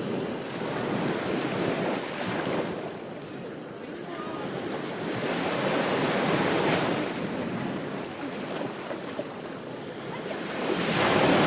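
Ocean waves breaking on a beach, the surf swelling and fading in slow surges every few seconds.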